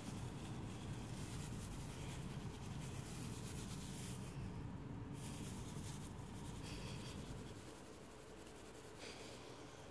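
Long grass rustling and scratching as a cat rolls and paws in it and a hand ruffles the stalks. Under it is a low rumble that drops away about three-quarters of the way through.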